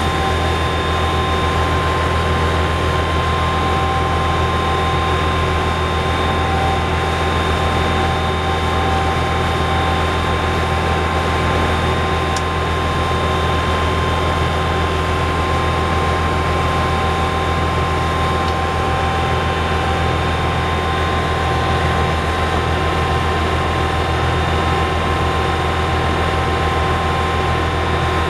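Yanmar Tobiuo 28GZ boat's inboard diesel engine running steadily under way, heard from the helm cabin: a loud, even drone with a steady whine above it.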